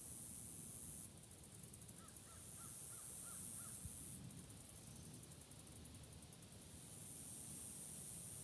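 Spring woodland ambience: a high-pitched insect chorus that stops and starts in stretches of a few seconds. About two seconds in, a bird gives a quick series of six calls, about three a second.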